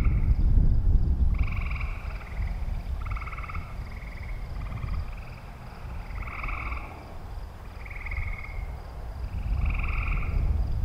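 Frogs calling in a chorus: short trilled calls, each under a second long, coming every second or so at slightly different pitches. A low wind rumble on the microphone is strongest at the start and end.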